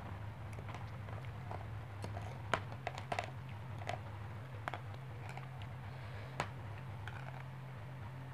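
A spoon and fork clinking and scraping against a plate of food in scattered light clicks, over a steady low hum.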